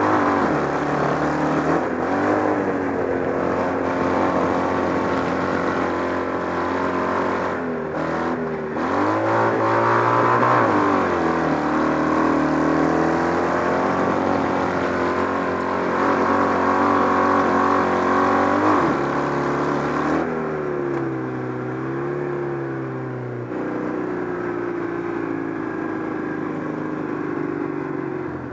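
Kart cross buggy's Citroën 2CV 602 cc air-cooled flat-twin engine, heard on board, running hard under load. The revs drop briefly and climb back up a few times, about a second in, around eight seconds in, near twenty seconds in and at the end.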